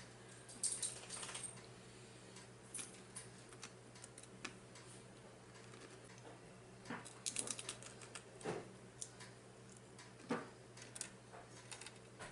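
Close-miked eating: faint crunches and small mouth clicks in irregular clusters, heaviest around the middle, over a steady low hum.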